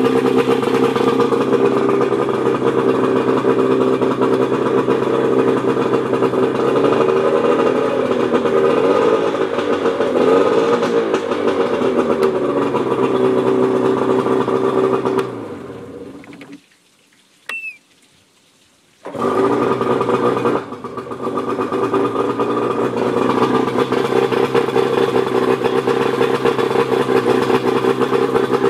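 1995 Johnson 50 HP two-stroke outboard running, its pitch rising and falling a few times as the throttle is worked. About halfway through it winds down and goes quiet for about three seconds, then starts again and settles back to a steady run.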